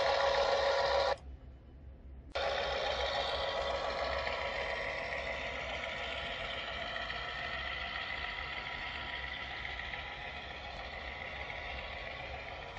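O scale Atlas GP7 model diesel locomotives' LokSound sound decoders playing steady EMD diesel engine sound through their onboard speakers as the train rolls by. The sound cuts out abruptly about a second in, returns after about a second, then slowly fades as the locomotives move away and the coal hoppers pass.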